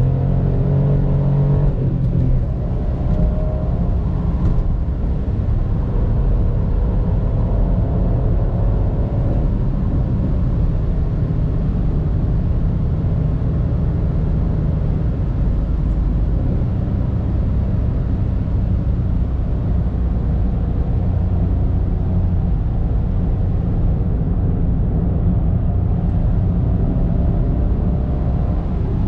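Mitsubishi Space Star's 1.2-litre three-cylinder petrol engine and tyre rumble heard from inside the cabin while driving. The engine note is clear in the first few seconds, dips briefly about two seconds in, and later sinks into a steady low rumble of road and wind noise.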